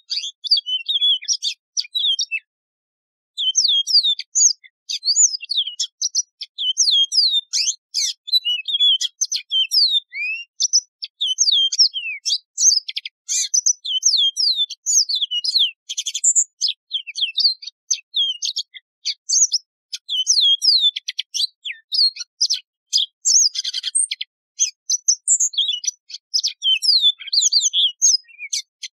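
Yellow-fronted canary (Serinus mozambicus) singing a long, fast run of high slurred whistles with short buzzy trills mixed in. There is a brief pause about two and a half seconds in.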